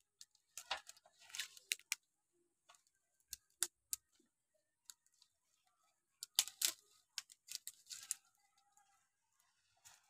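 Scattered rustles and sharp clicks: dry straw crunching and fishing gear being handled, in two busy clusters near the start and about six seconds in, with a few single ticks between.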